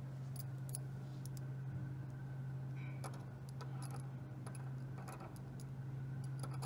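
Small metallic clicks and scrapes of a thin metal tool being worked in a deadbolt lock's keyhole, scattered irregularly, over a steady low hum.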